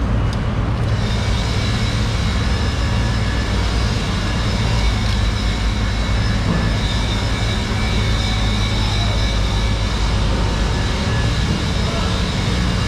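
Steady, loud mechanical drone of running machinery: a low hum with faint high whining tones, unchanging throughout.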